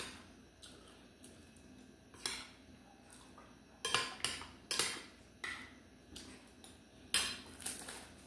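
Metal spoon clinking and scraping against a soup bowl while eating chicken soup: about six short, sharp clinks, most of them between two and eight seconds in.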